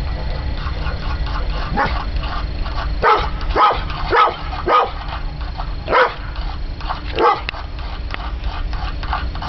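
Dog barking about seven times in short, separate barks, with fainter yips in between and a steady low rumble underneath.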